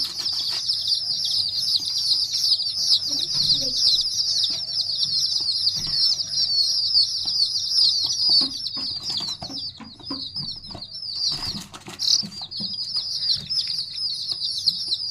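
A brood of chicken chicks peeping continuously, many high-pitched chirps overlapping, with scattered light taps and knocks.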